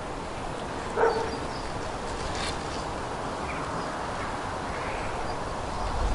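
A dog gives one short bark about a second in, over steady outdoor background noise.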